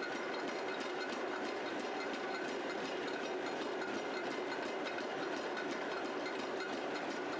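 Forge-shop machinery running steadily: a continuous mechanical noise with a light, even clatter of about three ticks a second.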